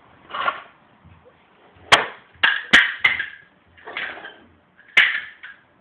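Sharp plastic clicks and knocks from a toy vacuum cleaner being handled, with softer rattling between them. Several come in quick succession about two to three seconds in, and one more comes near the end.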